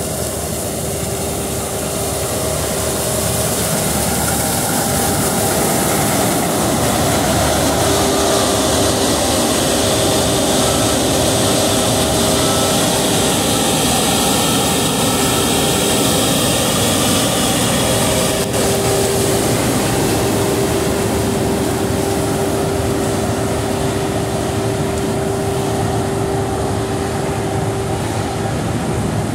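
John Deere and Claas combine harvesters running under load while cutting rapeseed: a steady mechanical drone of engines and threshing machinery with a held hum, growing a little louder a few seconds in.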